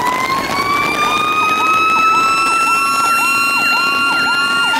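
Fire apparatus sirens. One siren tone slowly winds up in pitch throughout, like a mechanical siren spinning up. Under it an electronic siren cycles rapidly, about twice a second.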